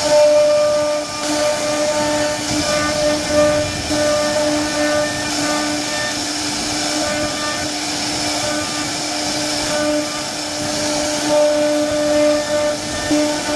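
CNC router spindle running steadily with a whine, its bit carving a relief pattern into a wooden panel, with the hiss of cutting over it.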